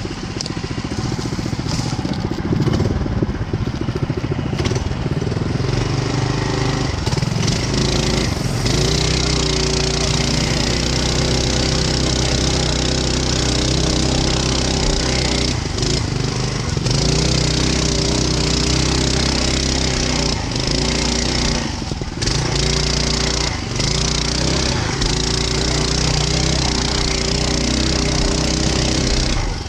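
Mega Moto 212 mini bike's 212cc single-cylinder engine running at a fairly steady speed while the bike is ridden, with a few brief dips in revs. A constant hiss of wind and rattle lies over it.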